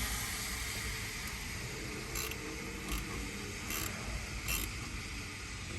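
Four brief mechanical rasps or clicks, evenly spaced about a second apart, over a steady low hum.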